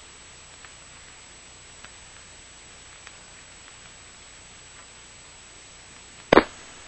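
Steady static hiss on the broadcast audio line, with a few faint clicks, broken about six and a half seconds in by one short, loud crackle.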